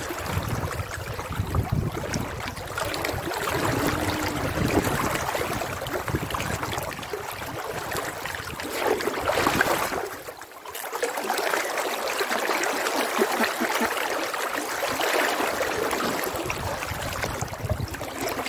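Fast-flowing, rain-swollen river water rushing and splashing right at the microphone around a swimmer. The sound dips briefly a little past halfway, as water splashes up over the phone.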